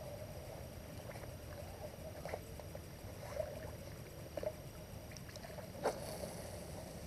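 Water splashing as a hooked fish is reeled in toward the bank: a few short, sudden splashes over a low steady background, the loudest about six seconds in.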